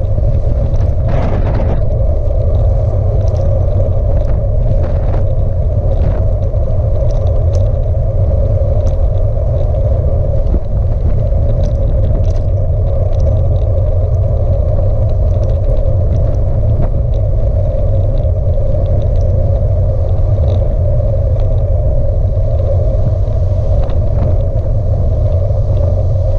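Steady wind buffeting on the microphone of a camera on a moving bicycle, mixed with the rumble of tyres rolling on rough tarmac, with a few faint ticks.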